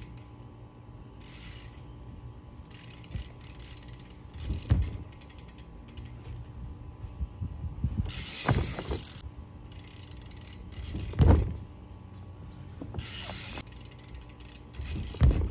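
BMX bike's freewheel rear hub ticking as the bike rolls and coasts, with several thuds from the wheels hitting the ramp, the loudest about eleven seconds in.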